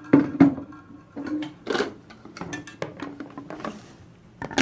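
Plastic toilet fill valve being yanked and worked by hand, giving a series of clicks and knocks, the two loudest about half a second in.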